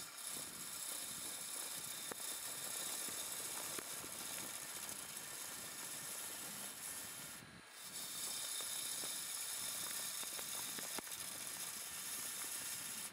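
A turning tool cuts the spinning underside of a laminated wooden platter on a wood lathe, giving a steady hiss of shavings coming off the wood. The cut breaks off briefly a little past halfway, then carries on.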